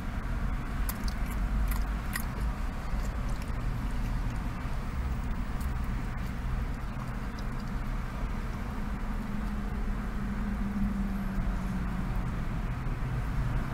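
Steady low rumble inside a car's cabin, with quiet chewing and a few faint clicks in the first couple of seconds.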